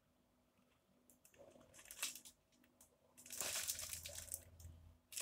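Clear plastic bag around a brown envelope crinkling as it is handled and turned over, starting with a few scattered crackles and growing into steadier, louder rustling about three seconds in.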